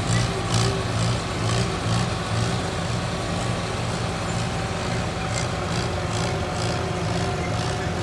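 Allis-Chalmers motor grader's engine running steadily as the machine moves forward with its blade cutting dirt, with a regular pulsing beat.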